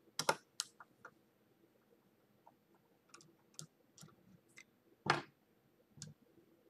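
Scattered clicks and light knocks of small parts and tools being handled while an AMB spindle's thumb switch is taken apart on a plywood bench top. The sharpest knocks come just after the start and about five seconds in, with faint ticks in between.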